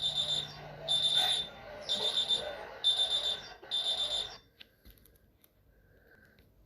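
Emergency alert alarm tone: five short, high-pitched beeps about a second apart, then it stops.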